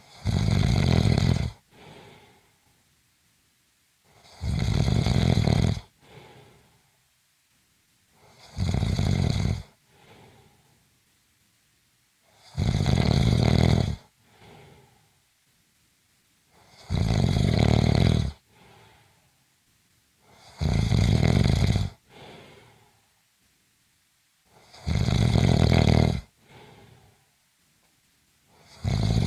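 Rhythmic snoring: a loud snore about every four seconds, each lasting just over a second and followed by a fainter, short breath.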